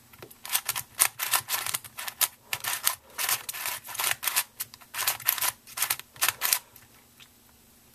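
A Meffert's Venus cube, a shape-modified 3x3 twisty puzzle, being turned fast with finger tricks: a quick run of clacking turns that stops about a second and a half before the end.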